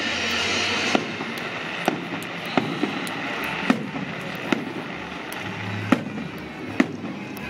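Fireworks salute going off: a sharp bang roughly every second, about eight in all, over a steady hiss of crackle and rumble.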